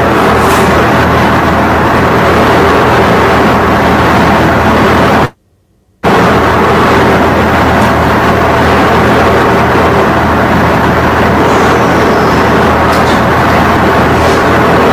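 Loud steady rushing noise with a low hum underneath, cutting out for under a second about five seconds in.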